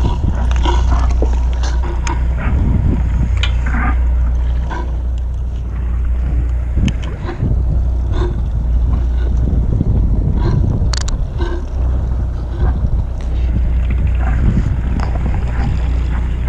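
Steady low rumble of wind and the fishing boat on open water, with scattered light knocks and clicks from handling the catch and tackle.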